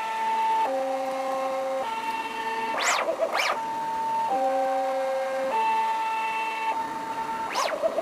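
CNC plasma table gantry drive motors whining as the machine traces the cut path with its laser pointer and no cutting, so no plasma torch sound. The whine steps between pitches every second or so as the moves change direction and speed. It is broken by two pairs of short sharp ticks, a few seconds apart.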